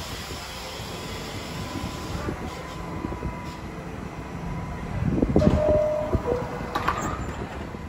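R68A subway train standing at a station platform with its equipment humming steadily. About five seconds in the door chime sounds, a held tone stepping down to a lower one, followed by sharp knocks as the doors close.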